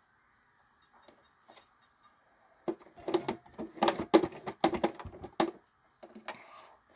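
Sewing machine stitching in a short run: a string of sharp mechanical clicks about three or four a second, starting a little over two and a half seconds in and lasting nearly three seconds.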